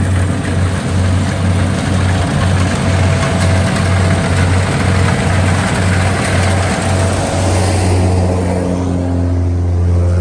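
Rice combine harvester's engine running loud and close, a low drone with a pulsing rhythm and a rattling hiss over it. About eight seconds in the pulsing smooths into a steady hum and the rattle thins out.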